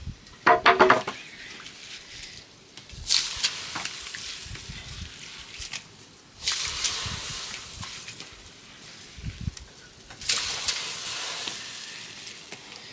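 Hot oil sizzling in a steel kadai over a wood fire, coming in surges of hiss. There is a short high call about half a second in.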